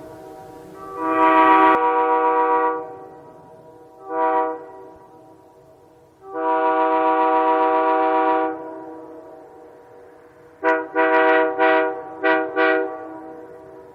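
Locomotive air horn sounded in a series of blasts: a long blast, a short one, a second long blast, then a quick run of about six short toots near the end.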